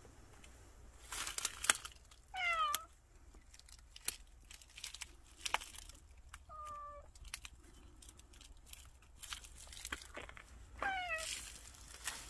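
A cat meowing three times: a short meow falling in pitch about two seconds in, a softer, shorter one near the middle, and another falling meow near the end. Scattered light crackling of dry twigs and leaves runs between the calls.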